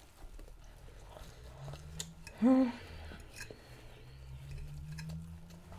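Eating at a plate: a few light clicks of a metal fork on a china plate, with one short vocal sound from the eater about two and a half seconds in.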